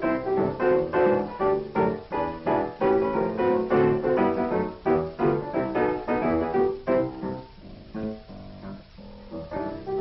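Piano music with quick, busy playing, growing softer and sparser for a couple of seconds about three-quarters of the way through.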